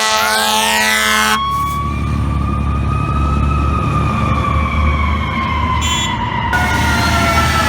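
FDNY fire truck sounding its air horn over its siren. The horn cuts off about a second and a half in, leaving one slow siren wail that rises and then falls away over several seconds, over the low rumble of the truck.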